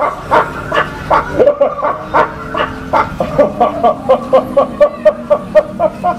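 A man laughing hard and without a break, in a long string of high-pitched bursts of about three a second.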